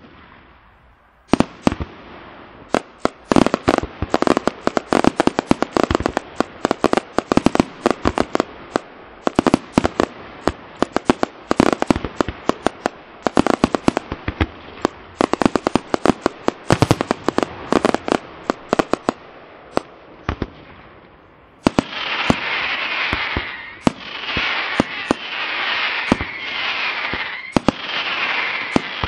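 Aerial fireworks display: a rapid run of sharp bangs and crackles, many a second, from bursting shells and crackling stars, for about twenty seconds. After that the bangs give way to a louder continuous hissing crackle with falling swishes about once a second.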